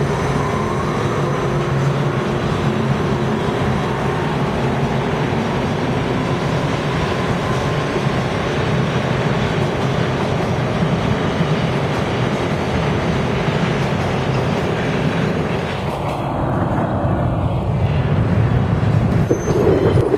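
Toronto subway train pulling out of a station: a steady rumble of wheels on the rails, with a faint rising motor whine in the first few seconds as it gathers speed.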